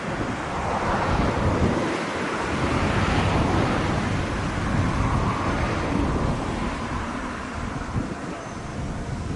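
Gusty wind buffeting the microphone, a rushing noise with low rumbles that swells in the middle and eases off toward the end.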